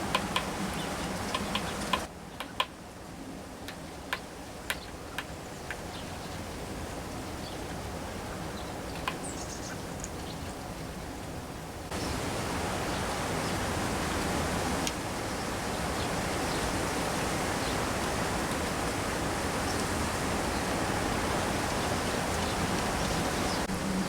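Steady wideband hiss of outdoor background noise that drops abruptly about two seconds in and comes back up about twelve seconds in, with a few faint sharp ticks in the quieter stretch.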